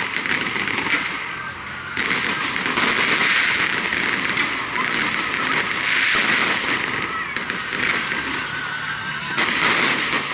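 Fireworks salute bursting close overhead: a dense, continuous crackle of popping stars. The crackle surges suddenly about two seconds in and again near the end.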